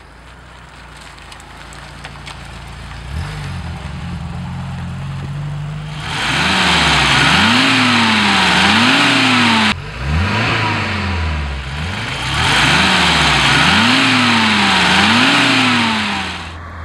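BMW 2002 Turbo's turbocharged 2-litre straight-four: it first grows louder as the car drives up, then idles, then is revved over and over from about six seconds in, the pitch climbing and dropping in long sweeps with a loud rushing hiss riding on the revs.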